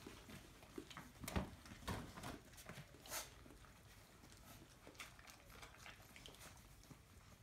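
Mother dog and her 4½-week-old puppies shuffling on fleece bedding while the puppies nurse: faint scuffles and clicks, a few louder soft knocks between one and two seconds in, and a short hiss about three seconds in.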